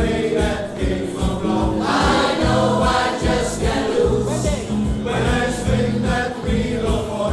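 Music: an upbeat pop song with a steady beat and a group of backing singers, in a passage without lead lyrics.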